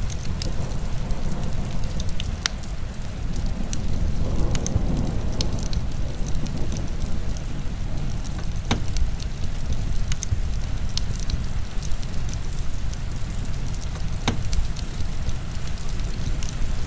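Heavy rain falling steadily, mixed with a crackling wood fire that gives a sharp pop every few seconds.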